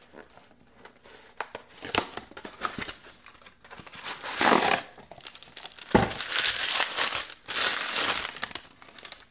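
Paper packaging crinkling and rustling as a candle is unwrapped from a small cardboard box and a mesh paper sleeve. Light handling clicks at first, then louder rustling in several stretches from about four seconds in.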